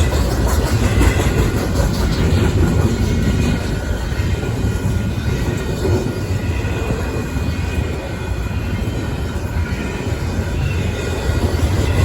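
Union Pacific intermodal freight train rolling past at close range: a steady, loud rumble of wheels on rail.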